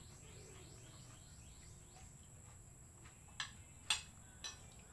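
A spoon clinks against a ceramic plate three times in the second half. Behind it runs a steady high drone of crickets, with faint chirps near the start.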